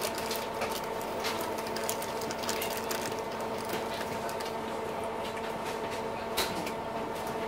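Express passenger boat's engines heard from on board: a steady hum of several fixed tones, with frequent light rattling clicks over it.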